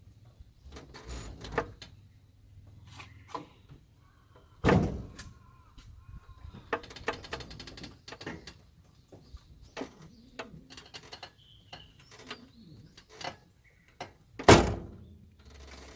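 Heavy clunks from a Suzuki Jimny, two loud ones about ten seconds apart, with lighter knocks, clicks and short creaking squeaks between them. This is the clunking that comes with turning the steering wheel, a noise whose cause the owner cannot find.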